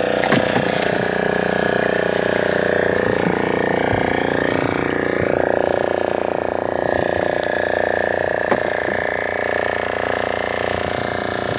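Fishing boat's engine running steadily, a droning hum with a constant pitch, with a few sharp knocks near the start and another about eight and a half seconds in.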